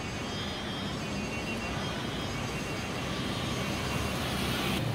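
Street traffic noise, a steady rush of passing vehicles that swells near the end as a vehicle draws closer.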